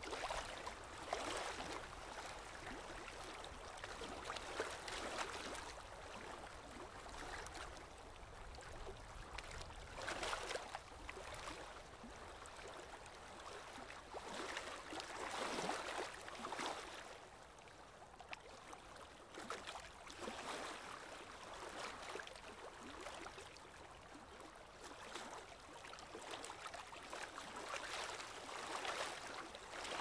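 Lake water splashing and washing in irregular surges a few seconds apart.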